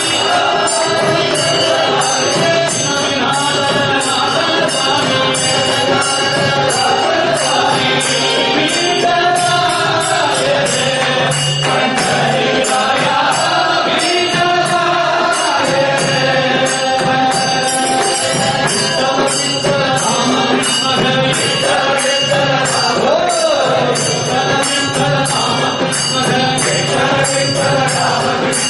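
Devotional bhajan to Vittala sung by a male lead voice, with small hand cymbals keeping a steady, even beat.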